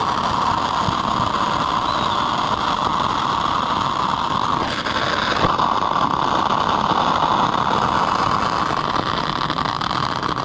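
Ground fountain firework spraying sparks with a loud, steady hiss. Its tone shifts briefly about five seconds in, then carries on.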